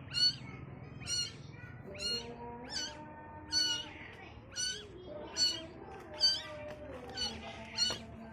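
A very young kitten meowing: short, high-pitched cries repeated about once a second.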